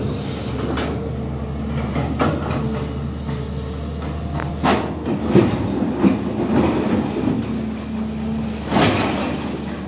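SANY hydraulic excavator's diesel engine running steadily under load, with a few sharp clanks and knocks scattered through, the loudest near the end.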